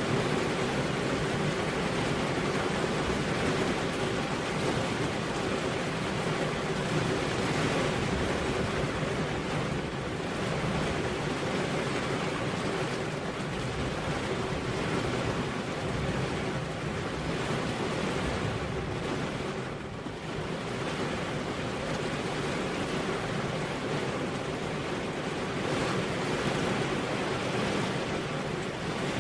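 Heavy rain falling steadily on a road, a dense, even hiss with no thunder.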